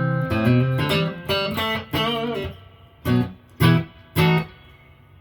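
Electric guitar played through a guitar amplifier with its spring reverb turned up, sounding bright: a held chord, then bent, wavering notes, then three short plucked notes about half a second apart near the end.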